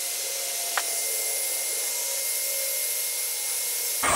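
Heat gun blowing hot air onto heat-shrink tubing over wiring splices: a steady airy hiss with a faint whine, and a single click about a second in.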